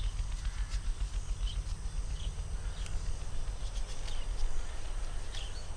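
Woodland ambience: a steady low rumble, with faint short bird chirps and a few light clicks scattered through.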